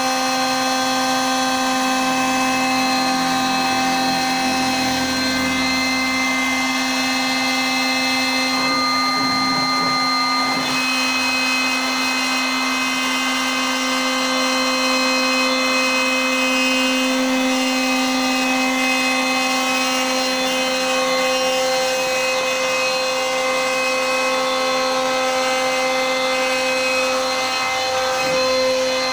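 CNC router spindle running steadily with a high whine while it cuts MDF; its tone shifts briefly about nine seconds in.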